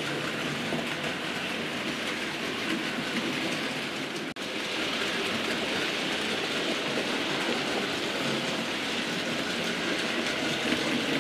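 Model railway locomotives and wagons running on the track: a steady rolling rattle of small wheels on the rails. The sound breaks off for an instant about four seconds in, then carries on a little brighter.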